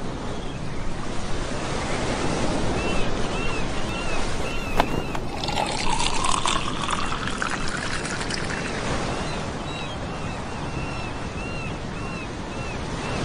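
Ocean surf and wind on the beach, a steady rushing haze. About halfway through, liquid pours or gurgles for a few seconds, rising in pitch. Faint high chirps repeat over it.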